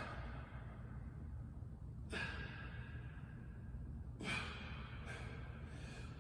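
A weightlifter's forceful exhalations and sighs of exertion during a heavy set: sharp breaths about every two seconds, each trailing off, the third one the loudest.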